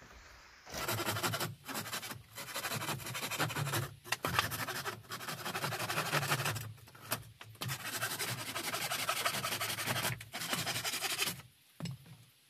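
A hand tool scraping rapidly against wood, in runs of one to three seconds with brief pauses, stopping about a second before the end.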